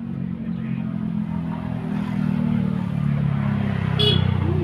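Motorcycle engine running, its sound building over the first couple of seconds and then holding steady, with one short sharp clink near the end.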